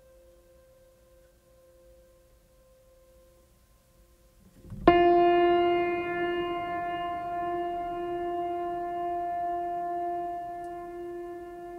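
Background ambient music: a faint held note, then a quick swell about five seconds in to a loud sustained chord that holds steady.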